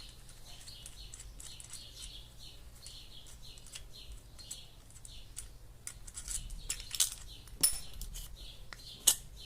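Light metal clicks and clinks of hand tools being worked on and lifted off a small metal motor part, with a few sharper clinks in the second half. A faint high chirping repeats steadily in the background.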